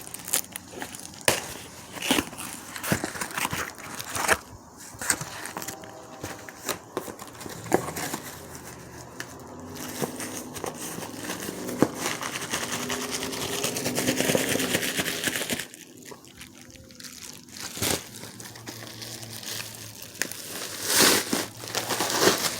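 Packaging being handled and opened: crinkling and rustling with many sharp clicks and knocks, and a longer stretch of steady rustling about halfway through.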